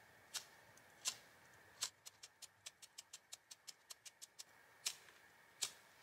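Faint, sharp clicks from a lighter's igniter being worked to light a propane melting furnace: a few single clicks, then a quick run of about four to five a second, then two more. No flame catches.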